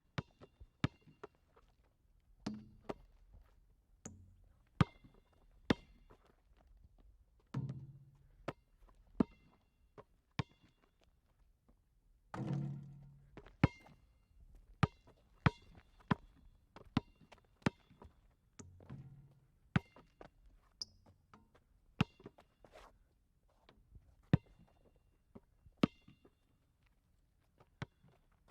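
Irregular sharp clicks and knocks, sometimes several a second, with a few duller low thuds that die away slowly, four in all.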